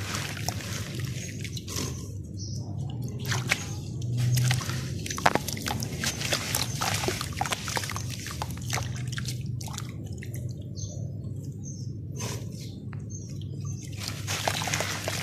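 Hands crumbling clumps of dry red dirt into a basin of muddy water and swirling it, with splashing, dripping and sloshing in irregular bursts and a quieter lull about ten seconds in.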